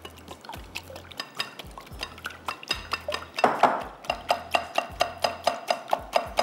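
Eggs being beaten with water in a bowl, the utensil clinking against the bowl in quick strokes that grow louder and settle into an even rhythm of about four a second about halfway through.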